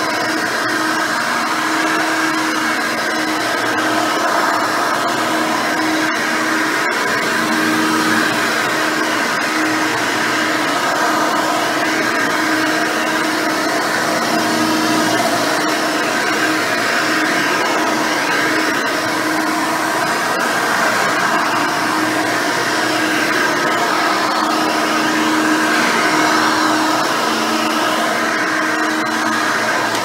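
Hoover Elite 600 upright vacuum cleaner running steadily as it is pushed back and forth over carpet: the 6-amp motor and fan drone, with the dual-row bristle brush roll turning against the pile.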